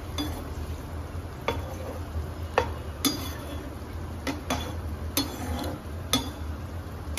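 A stainless steel slotted skimmer stirring a thin chickpea curry in a nonstick frying pan, clinking against the pan about nine times at uneven intervals. A steady low hum runs underneath.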